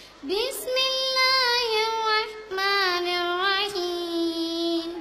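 A girl's voice chanting a Quran recitation (qirath) in two long melodic phrases, the first opening with a rising slide.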